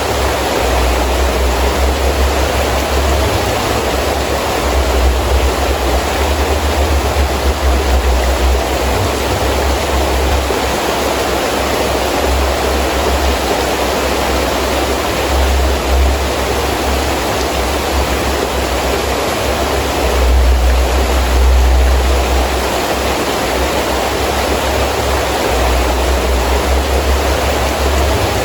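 Heavy rain falling steadily in strong wind, a dense even hiss, with a deep low rumble of gusts that swells and fades several times, strongest about 20 seconds in.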